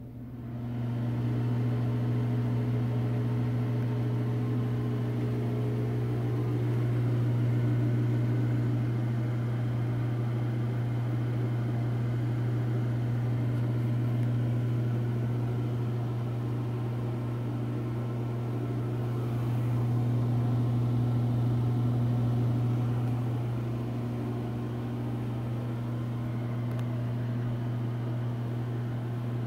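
Penn Zephyr ceiling exhaust fan running with a steady low buzz over the rush of its airflow; the buzz is the fan's buzzy condition. The sound comes up to full level within the first second and swells slightly a couple of times.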